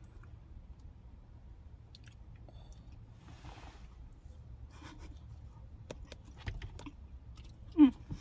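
A person chewing a mouthful of chili and cornbread close to the microphone, with small wet mouth clicks. Near the end there is one short, loud sound that falls in pitch.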